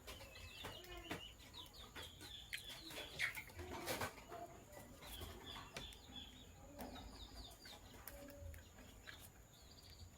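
Lovebirds chirping in short, high, repeated calls, with scattered sharp clicks and one louder sharp sound about four seconds in.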